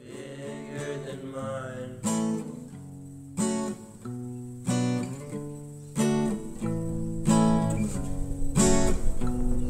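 Background music: acoustic guitar strumming chords, with a strong strum about every second and a quarter.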